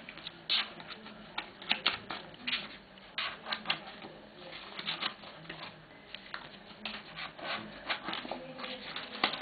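Jigsaw lampshade pieces being handled and slotted together by hand, giving irregular clicks and light rustling.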